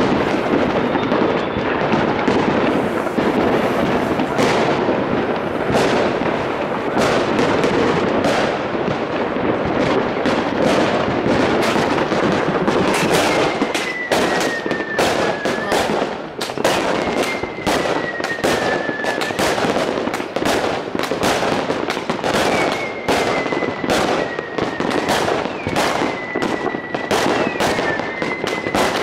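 Many fireworks going off at once, a dense, continuous crackling and banging with no gaps. From about halfway through, several long whistles slide slowly downward in pitch, each lasting two to three seconds.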